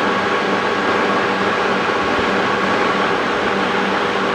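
Mori Seiki MR1500G toolroom lathe running under power with the feed engaged on the cross slide and apron: a steady mechanical hum and gear whine of the headstock and feed gearing, even in level throughout.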